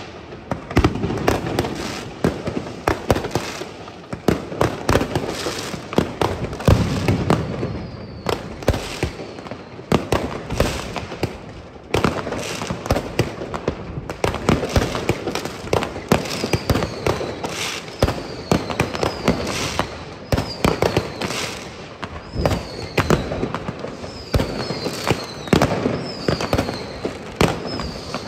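Fireworks going off: a dense run of bangs and crackling from firecrackers, rockets and fireworks batteries. In the second half a string of short falling whistles sounds among the bangs.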